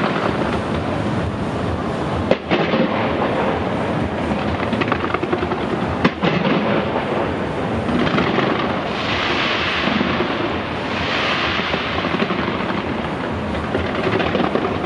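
Fireworks fired from the Taipei 101 skyscraper: a dense, continuous barrage of bangs and crackling, with two sharper single bangs about two and a half and six seconds in, and two stretches of louder hissing past the middle.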